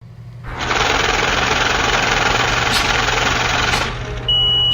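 An engine running under a loud, steady rushing noise that stops suddenly, followed near the end by a short, steady high-pitched beep.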